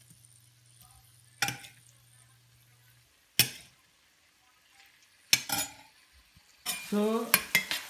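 Sharp metal clinks and knocks on a cast iron skillet, one every couple of seconds, over a faint sizzle of raw chicken pieces in heating olive oil. Near the end comes a busier run of clattering.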